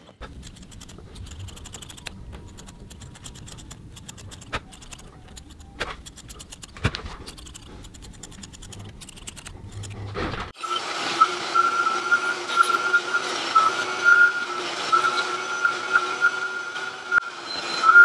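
Light scraping and clicking as a small hand tool picks at the tufted rug's pile. About ten seconds in, a vacuum takes over, running steadily with a held whine as its hose nozzle goes over the rug.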